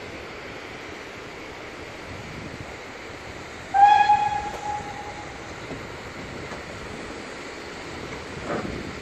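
A steam locomotive's whistle gives one short blast about four seconds in: a single steady note with a sharp start that fades away over about a second and a half, over a steady rushing background.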